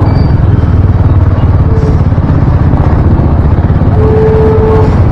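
Heavy wind noise rumbling over a helmet-mounted action camera's microphone on a moving motorcycle, with the motorcycle and traffic underneath. The audio stays blown out ("sabog") despite the owner's fix. A brief steady tone sounds about four seconds in.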